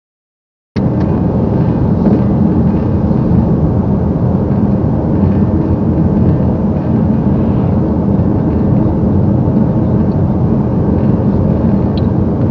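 Steady road and engine noise of a car driving at speed, heard from inside the cabin, a loud even rumble that starts abruptly under a second in.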